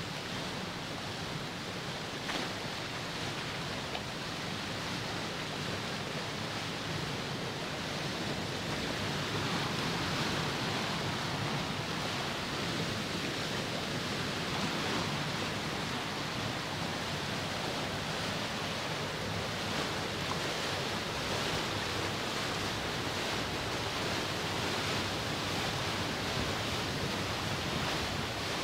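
White water rushing and churning out of the outlets beneath a hydroelectric plant's powerhouse into the tailrace, a steady rushing noise that grows a little louder about a third of the way through.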